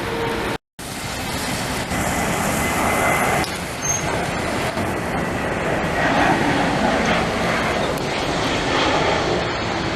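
Jet airliner engine noise at takeoff: a steady broad roar, cut by a brief silent gap under a second in.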